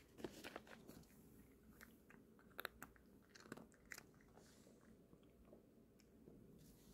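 Cat chewing Temptations dry cat treats, a faint run of small crunches through the first four seconds, thinning out after that.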